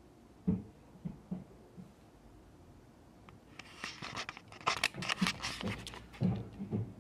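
Dull low thumps coming through the ceiling from the upstairs flat: a few in the first two seconds and more near the end. Between them, louder rustling and clattering as the camera is picked up and handled.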